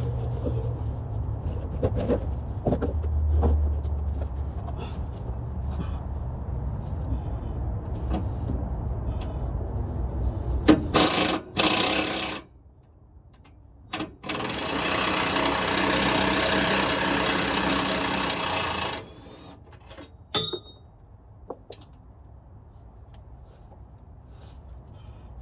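A cordless power tool run on bolts under a vehicle while a transmission is taken out: a short loud burst about eleven seconds in, then a steady run of about four to five seconds, with light metal clicks and clinks from hand tools before and after.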